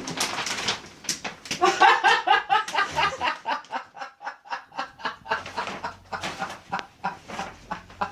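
A woman laughing in quick, clucking bursts while wrapping paper and tape are torn and rustled off a wrapped refrigerator in a run of short rips.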